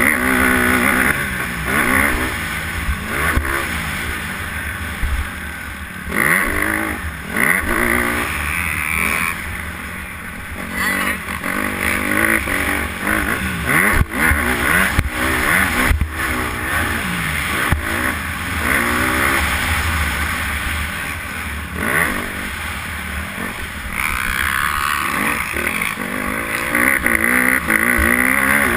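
Honda motocross bike's engine at full race pace, revving up and dropping back over and over as it shifts through the gears. Sharp knocks from the track bumps break in now and then.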